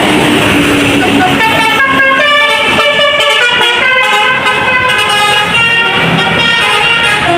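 Tour bus's multi-tone telolet air horn playing a quick tune of stepped notes, starting about a second and a half in, over road noise.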